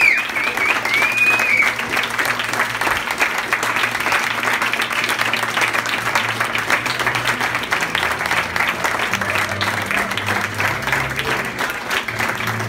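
A crowd of wedding guests clapping steadily, with music underneath that grows stronger in the second half.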